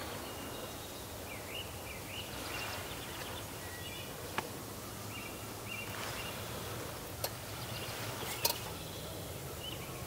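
Spring woodland ambience: scattered short bird chirps over steady low background noise, with three sharp clicks spread through.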